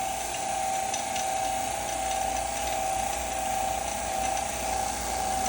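Electric vacuum pump running steadily, a constant whine over a mechanical hum, as it pulls a vacuum on the chamber.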